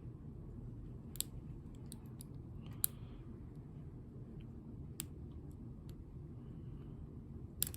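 Sterling padlock being picked: a few sharp, isolated clicks of the pick and pins inside the lock, a second or two apart, over a low steady hum. The lock is held in a deep false set from its spool pins.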